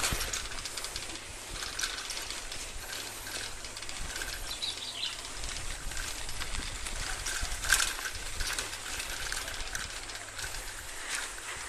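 Bicycle freewheel clicking as the bike rolls along a rough dirt and sand track.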